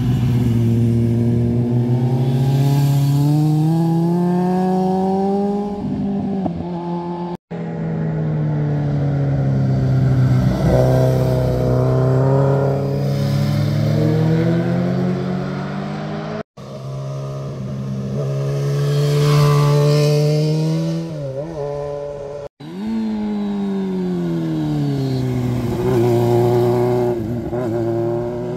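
Motorcycle engines as bikes ride one after another through hairpin bends. The revs rise and fall through gear changes and throttle on and off around the curves. The sound cuts off abruptly three times where one clip gives way to the next.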